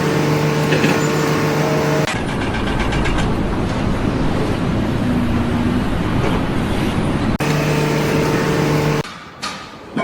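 Motor noise: a steady hum with a few fixed pitches, cut abruptly to a rougher, noisier stretch about two seconds in, back to the hum near the end, then dropping away to quieter sound with a few knocks.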